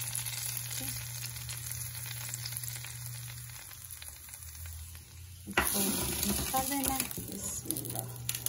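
Fried onions in hot desi ghee poured onto haleem as a baghar (tempering), sizzling with a steady hiss that slowly fades. About five and a half seconds in, a sudden louder stretch of a wooden spoon stirring the thick haleem, with scattered knocks against the pot.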